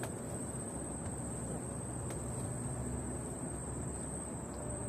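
Insects droning steadily at one high pitch, over a low, even rumble of wind noise.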